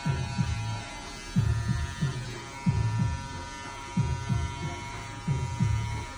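Corded electric hair clippers buzzing steadily while trimming a boy's hair. Under the buzz runs a louder low beat of paired thumps repeating about every second and a quarter.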